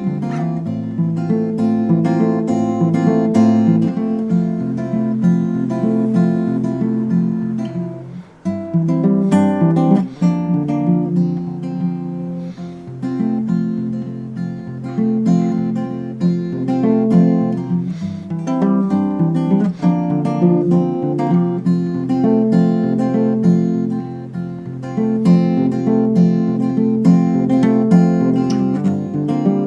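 Graphite acoustic guitar finger-picked in a polyrhythmic pattern, playing a ballad, with a brief break in the notes about eight seconds in.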